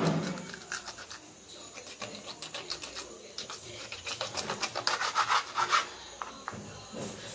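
Kitchen knife sawing through a whole fish behind its head on a wooden chopping board: a run of short rasping strokes, about four a second and loudest about five seconds in, after a knock at the start.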